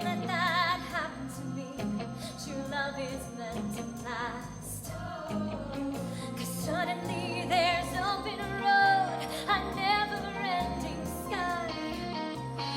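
Music: held, sung notes with wide vibrato over instrumental accompaniment, without clear words.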